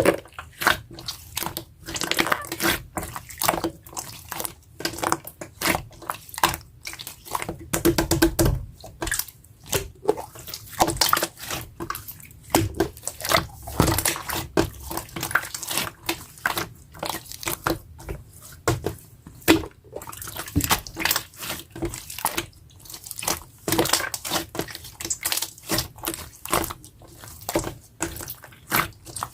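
Clear, jelly-textured slime being squished and pressed by hand, making a dense, irregular run of wet clicks and small pops.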